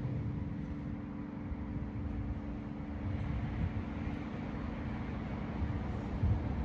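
Church tower bells' lingering hum, several steady tones that fade away after about three seconds, over an uneven low rumble.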